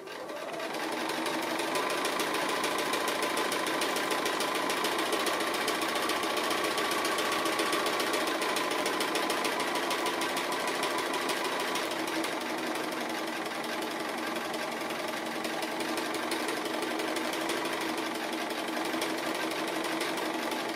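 Bernina sewing machine stitching steadily around the edge of a fused raw-edge applique, a fast, even run of needle strokes that starts about half a second in and keeps on without a break.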